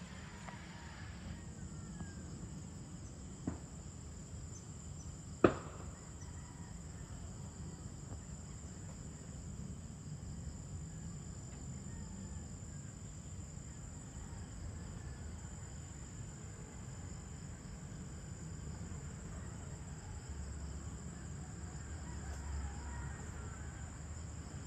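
Evening insect chorus: a steady high-pitched drone over a low rumble. Two sharp clicks stand out, about three and a half seconds in and again two seconds later, the second one louder.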